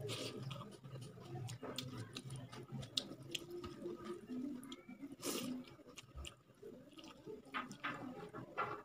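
Chewing and wet mouth clicks and smacks of someone eating rice mixed with rasam and chicken curry by hand, with the squish of fingers mixing the wet rice. A louder smack comes about five seconds in.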